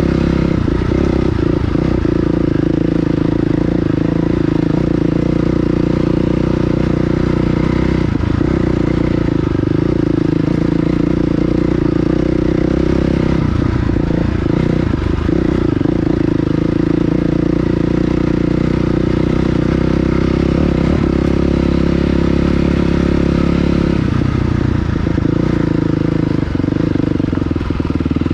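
Dirt bike engine running steadily under way, its note dipping briefly a few times.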